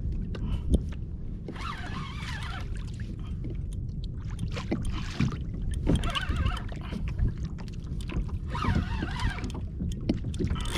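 Fishing reel drag whining in several bursts, its pitch wavering, as a hooked fish pulls line off the reel. Steady low water and hull noise from the kayak runs underneath.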